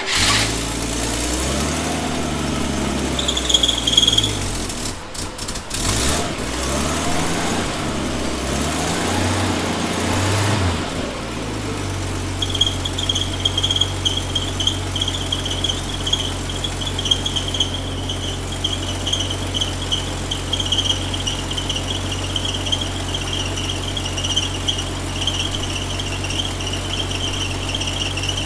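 1964 Chevy Nova engine revved up and down several times, then settling into a steady idle. A high, steady squeal starts briefly a few seconds in and holds from about twelve seconds on over the idle, with the newly fitted A/C system running.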